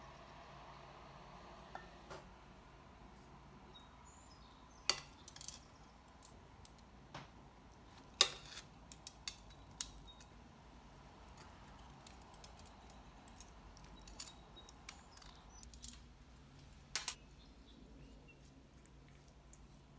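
Scattered light clicks and clinks of kitchen utensils: metal tongs handling chicken in a cast iron skillet and a silicone basting brush against a glass measuring cup. The loudest clink falls a little before halfway, with a quick double click near the end, over a faint steady hum.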